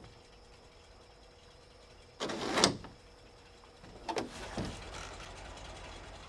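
A wooden plank door being unlatched and opened: a loud sliding scrape of the iron latch about two seconds in, then a few short clunks as the door is pulled open.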